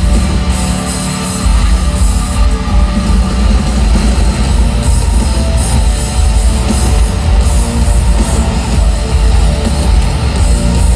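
A live band playing a loud, heavy rock instrumental led by electric guitar. The low end drops out briefly about a second in, then the full band comes back in.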